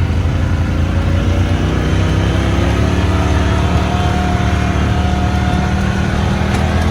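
ATV engine running under way, its pitch rising a little over the first few seconds and then holding steady.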